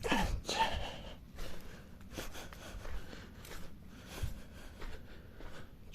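Irregular soft rustles and light taps, with a short louder burst at the very start.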